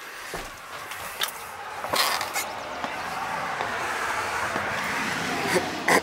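A few clicks and footsteps of someone going out through a door, then the tyre noise of a passing road vehicle swelling over a few seconds.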